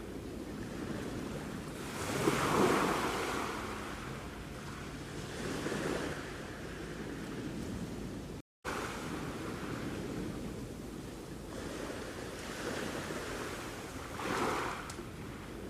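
Sea waves washing onto the shore, a steady surf wash with a louder wave surging in every few seconds. The sound cuts out completely for a split second about halfway through.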